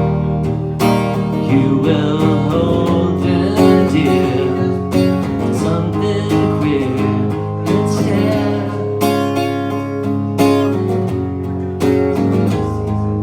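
Acoustic guitar strummed steadily in a solo live song performance, a passage with no sung words.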